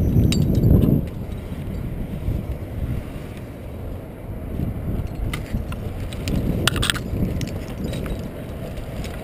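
Wind buffeting a head-mounted action camera's microphone, strongest in the first second, with scattered light clicks and clinks from climbing hardware and twigs as a climber moves through a tree's branches.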